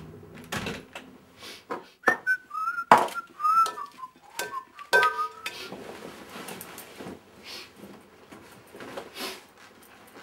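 A person whistling a short wavering tune for about three seconds, starting about two seconds in, over clattering knocks. The loudest is a sharp knock about three seconds in, followed by fainter rustling and knocks.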